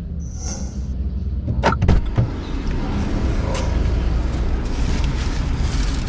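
Low, steady rumble of a car running, with a few sharp knocks about two seconds in and a short high electronic tone near the start.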